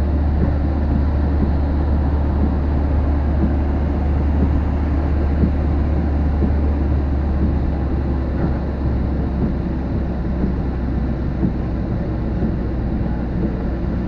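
Storm wind buffeting the microphone: a steady, loud, deep rumble with no separate strikes.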